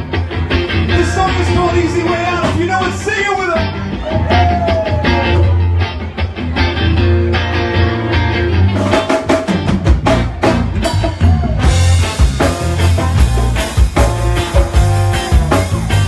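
A rock band playing live and loud: electric guitar over bass and a drum kit, the cymbals coming in denser about twelve seconds in.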